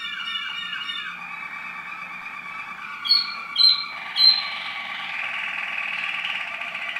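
Waterslager canary song: sustained rolling trills and warbles, with three short, loud, high notes about three to four seconds in, then a fast rolling trill building toward the end.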